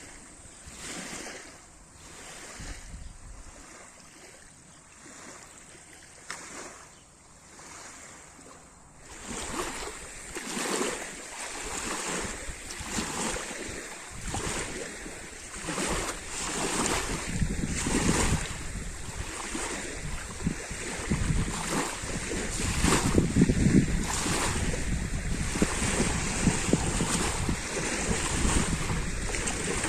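Lake water splashing and lapping against the shore in irregular small waves. It is quieter for the first nine seconds or so, then grows louder and busier.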